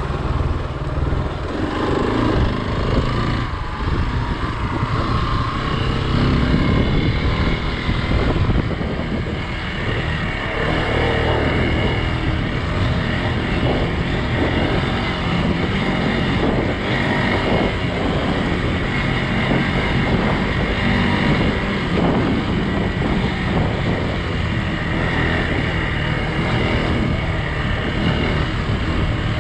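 Hero XPulse 200 motorcycle's single-cylinder engine running steadily while it is ridden along a dirt trail.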